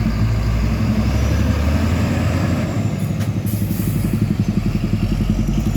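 Heavy truck's diesel engine running loud and steady, with a low, fast, even pulsing from the engine's firing.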